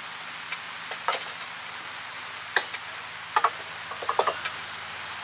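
Heavy rain falling steadily, a continuous hiss, with a handful of sharp ticks scattered through it.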